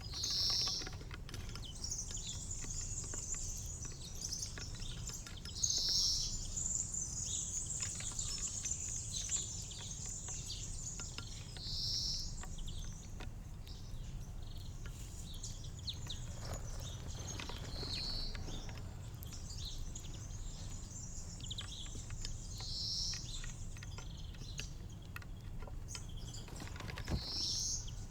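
Small songbirds chirping and twittering at a garden feeder, with a short, louder high call about every five to six seconds and scattered light ticks and taps.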